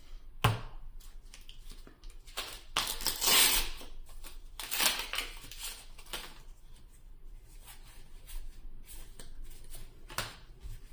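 Crinkling and rustling of a foil trading-card booster pack and its cards being handled, in irregular scrapes, with a sharp tap about half a second in and the loudest rustle about three seconds in.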